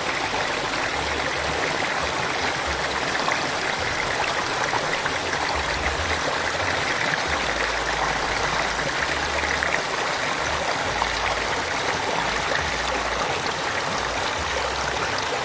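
Small river flowing over a little waterfall: a steady rush of water.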